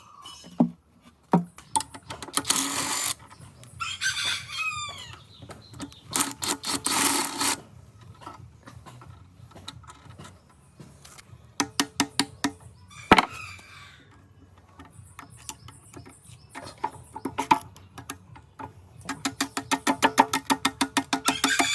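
Workshop clatter of metal parts and hand tools: scattered sharp clicks and knocks, two short bursts of hissing, and a run of rapid, even clicking near the end. A rooster crows in the background about four seconds in.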